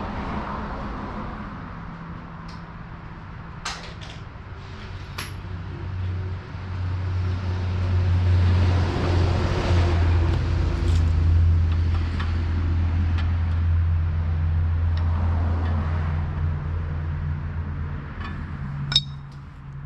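A steady low mechanical hum that swells about six seconds in and eases off near the end, with a few sharp metallic clinks, the loudest near the end.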